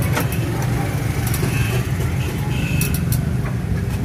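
Steady low drone of an idling vehicle engine, with a few short knocks and rubbing sounds as a rickshaw's seat is wiped down with a cloth.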